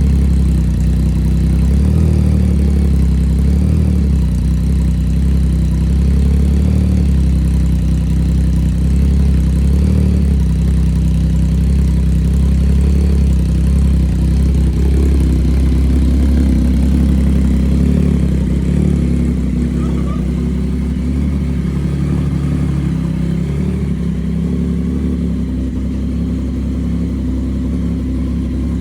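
Yamaha MT-09 motorcycle's inline three-cylinder engine idling steadily at a deep, even note, with no big revs.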